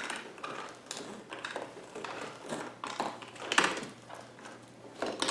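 Power cord being wound onto the plastic cord hooks of a Hoover MaxExtract 60 PressurePro carpet washer: irregular rustles and scrapes of the cord, with light taps on the plastic body.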